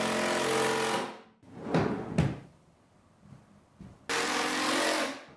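Cordless drill driving screws in two runs of about a second and a half each, the motor winding down at the end of each run, with two knocks in between.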